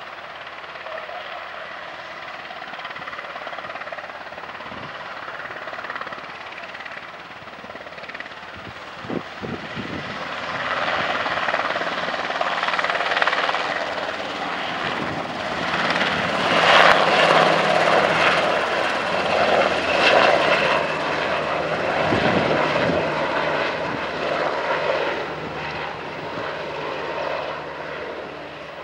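Sikorsky UH-60 Black Hawk helicopter flying low: steady rotor and turbine noise that grows louder about a third of the way in, is loudest around the middle as it passes close, then eases off as it climbs away.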